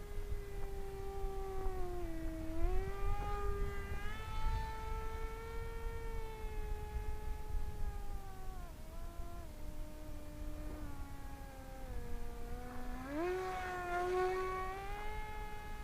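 Electric motor and propeller of an AtomRC Bat delta-wing RC plane whining in flight. The pitch dips briefly about two and a half seconds in, sinks slowly from about eight seconds, then climbs quickly back near the end.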